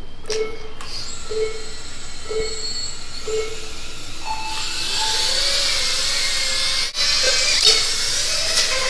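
Race timer start sequence: four short low beeps a second apart, then a higher start tone about four seconds in. Then several small FPV quadcopters take off, their motors whining and wavering up and down in pitch over a steady hiss.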